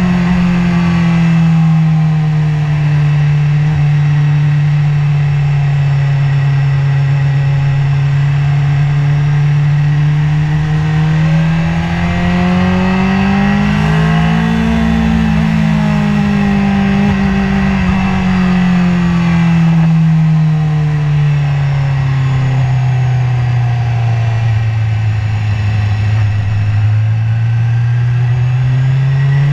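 BMW S1000RR's inline-four engine running under steady throttle, heard from a camera mounted on the bike over wind rush. Its note climbs slowly to a peak about halfway through, sinks to its lowest near the end, then rises again, with no sharp gear changes.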